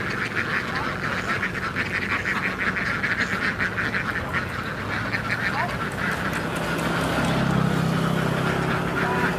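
A large flock of laying ducks quacking constantly in a dense, overlapping chatter. A low steady motor hum swells in the second half.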